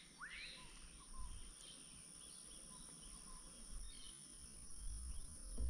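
Faint outdoor ambience: a steady high-pitched insect drone, with a short rising bird note about half a second in.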